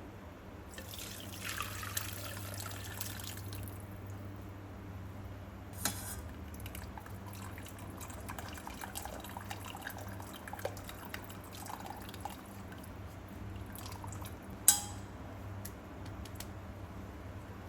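Liquid poured into a cooking vessel for about three seconds, then scattered light clinks and knocks of kitchen utensils, with one sharp clink about fifteen seconds in.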